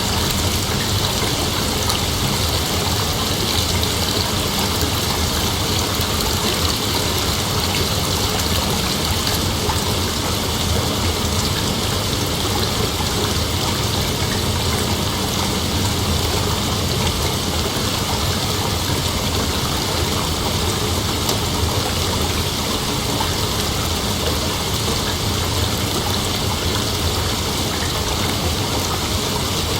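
Steady rain falling, an even, unbroken rush of noise.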